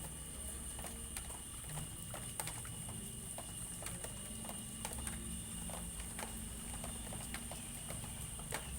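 Scattered light taps and clicks at an uneven pace, over a low steady rumble with a thin steady high tone above it.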